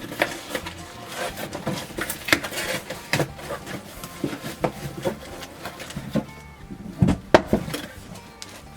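A shipping package being opened by hand: irregular rustling, tearing and crinkling of the packaging, with a couple of sharper knocks about seven seconds in.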